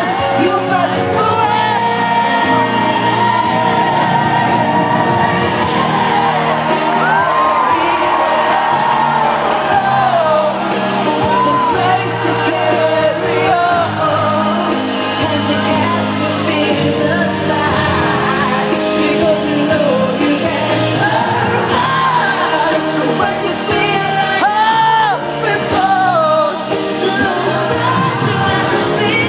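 Live pop concert: a woman singing held and gliding notes over a full band, with shouts and whoops from the audience, echoing in a large arena.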